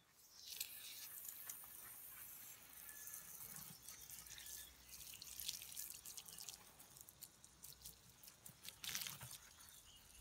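Faint hiss of a garden hose spray nozzle rinsing an old cast-iron toilet cistern, with water splashing and dripping off the metal onto grass. The spray is washing off the strong vinegar used to strip the rust.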